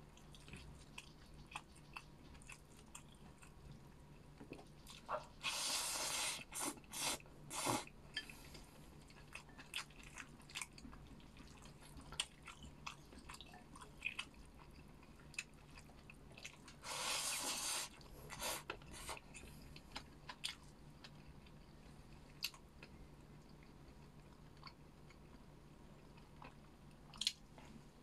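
Close-miked eating sounds: chewing and biting with many small wet mouth clicks, and two longer, louder mouth noises about five and seventeen seconds in.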